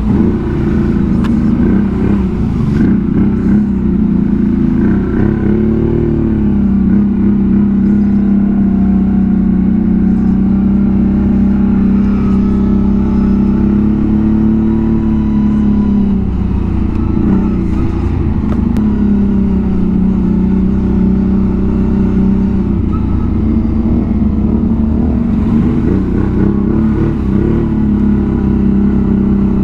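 V-twin ATV engine running under way at fairly steady revs, its pitch easing up and down a little with the throttle.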